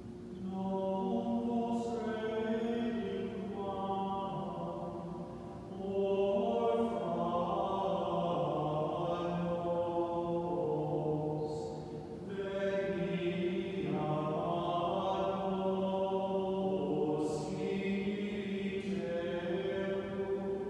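Slow chanted singing during Communion at Mass: long held notes moving slowly in pitch, sung in phrases with brief breaths about six and twelve seconds in.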